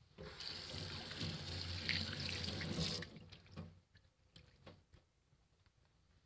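Kitchen tap running into a sink for about three seconds, then shut off abruptly, followed by a few faint knocks and clicks.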